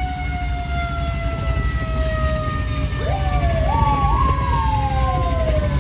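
Sirens wailing, their pitch sliding slowly down, with a second siren climbing in short steps about three seconds in and then falling away, over a steady low rumble.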